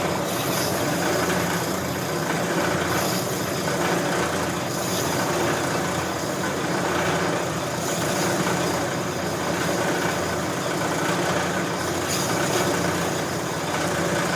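Brake lathe running steadily, its cutting bit taking a slow-feed cut across a steel automatic-transmission clutch backing plate to machine it thinner, with slight regular swells every second or two.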